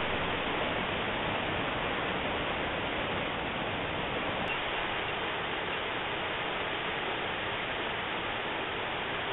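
Steady rushing of falling water from a tall waterfall, an even unbroken noise. It begins abruptly at a cut.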